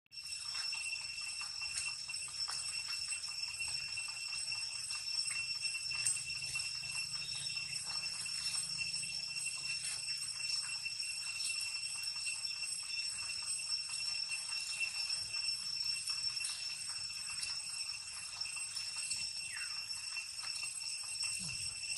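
Insects in the surrounding vegetation keeping up a continuous high-pitched, even trill, with faint scattered clicks and rustles from the monkeys on the stone.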